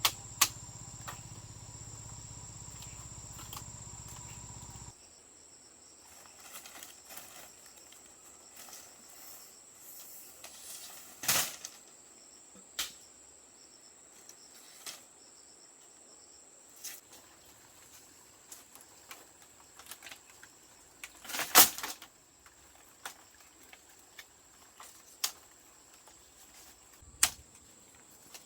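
Steady high chirring of crickets, with scattered sharp knocks and taps, the loudest about eleven and twenty-one seconds in. A low hum stops about five seconds in.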